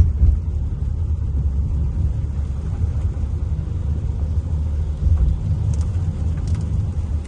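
Steady low rumble, like a car moving on the road, with a couple of faint ticks near the end.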